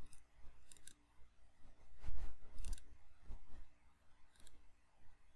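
Small sharp clicks and taps of multimeter probe tips touching components on a power supply circuit board, with one louder dull knock about two seconds in.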